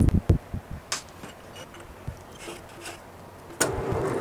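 Steel part and tools knocking and clicking against a drill-press vise, then the drill press motor switches on about three and a half seconds in and runs steadily.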